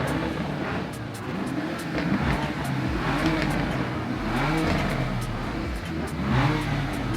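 Car engines being revved at a car meet: repeated blips that rise and fall in pitch, several in a row, some overlapping.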